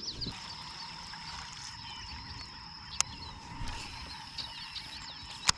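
Outdoor pond ambience: small birds chirping and a steady high insect-like hum, with faint water sounds underneath. Two sharp clicks, about three seconds in and again near the end.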